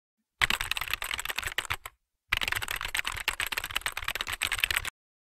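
Typing sound effect: rapid key clicks in two runs, the first from about half a second to two seconds in, the second from about two and a half seconds to nearly five seconds in.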